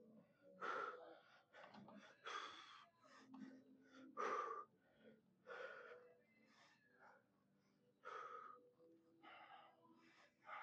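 A man's heavy, gasping breaths, coming about every one to two seconds, as he recovers winded from hard leg sets.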